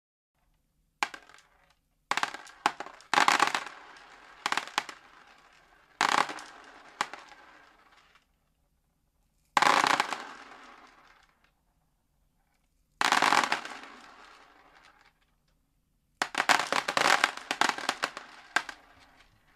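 Dried beans rattling and scattering in a series of sudden bursts, used to imitate fireworks. Each burst starts sharply and trails off into a scattered patter over a second or two, with a dense crackling run near the end.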